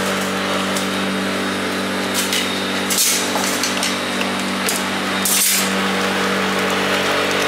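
A steady mechanical hum that does not change in pitch, with two brief bursts of hissing noise about three and five and a half seconds in.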